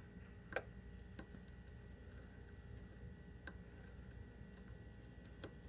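Faint, scattered clicks of a lock pick working the pins of a Scorpion CX5 pin-tumbler lock, with a few sharper ticks spaced irregularly.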